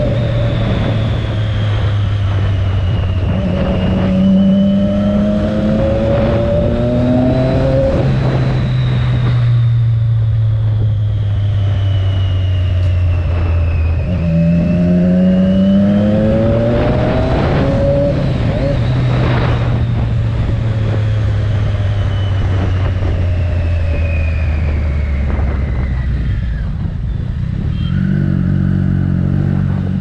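Triumph Daytona 675's three-cylinder engine through an Arrow aftermarket exhaust, heard from the rider's seat: it accelerates twice, pitch rising through the gears with short breaks at the shifts, runs steadily at cruise, then eases off and slows near the end.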